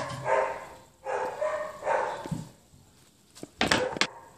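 A dog barking about three times, then a short run of sharp knocks about three and a half seconds in, from the MDF board being moved on the bench.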